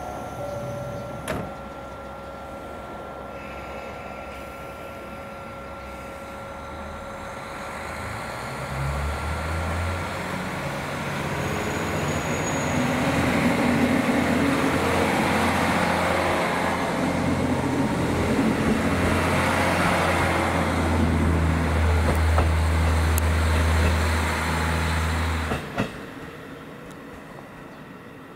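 Diesel engine of a KiHa 40 railcar running steadily at first, then working hard as the train pulls away, a loud low drone that builds from about a third of the way in. The engine sound cuts off abruptly near the end.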